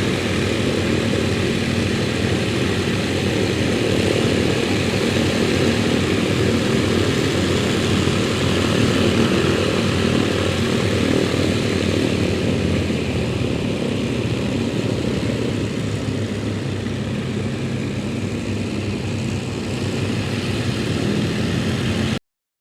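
Piston-engined propeller aircraft running steadily with an even, continuous drone. It cuts off suddenly near the end.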